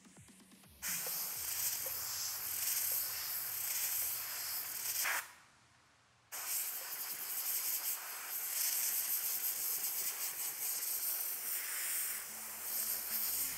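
Compressed-air blow gun hissing as it blasts air through a pleated paper engine air filter from the inside out, clearing dust from the used element. It comes in two long blasts with a break of about a second in the middle.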